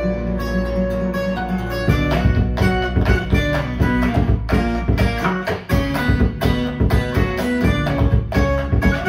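Guitar-led music played back through KEF LS60 Wireless speakers, with plucked notes; the sound grows fuller and louder about two seconds in.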